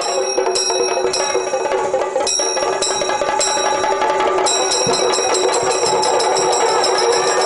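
Music with a bright metal bell or small hand cymbals struck repeatedly over a steady held note, about twice a second at first and faster from about halfway through.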